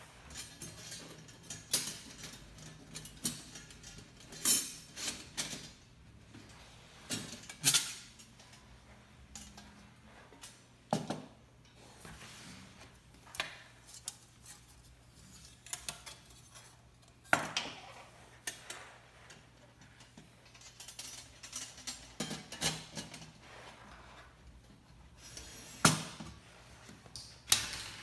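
Metal parts of a fire stand clinking and clacking against each other as they are fitted together during assembly, in irregular sharp knocks with short pauses between.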